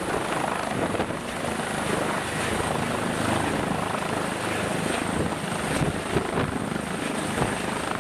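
Helicopter running steadily, a dense unbroken noise.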